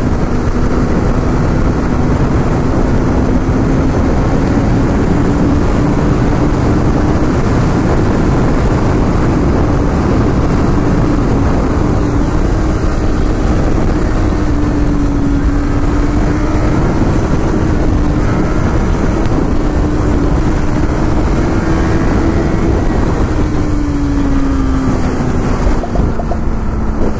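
Honda CBR1000RR's inline-four engine droning at a steady highway cruising speed under heavy wind rush on the microphone. The engine note drops lower near the end as the bike eases off.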